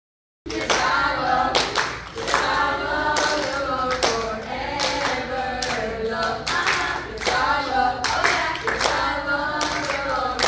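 After half a second of silence, a group of children and adults sing a lively song without accompaniment, clapping in time at roughly one clap a second.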